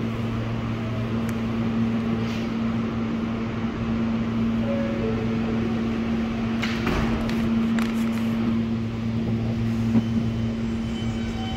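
An Alstom R160A subway car stands in the station with its equipment giving a steady hum. About halfway in a short two-note door chime sounds, followed a moment later by a brief rush of noise as the doors shut. Near the end a click and a high whine start as the train begins to pull out.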